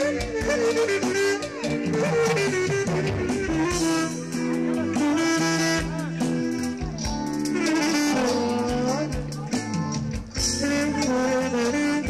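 Band music: a wind instrument plays a winding melody full of slides and ornaments over steady bass notes and a drum beat.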